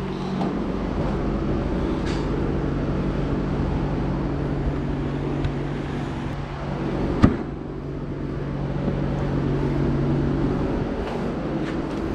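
A vehicle engine running steadily with road noise, its hum holding a steady pitch, and a single sharp knock about seven seconds in.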